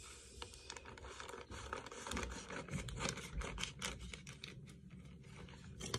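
Scissors snipping through a plastic mailer bag, a quiet, irregular run of small clicks and cuts with the bag rustling in between.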